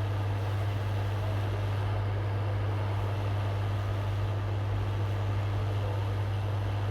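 Steady low electrical hum with an even hiss behind it, unchanging throughout.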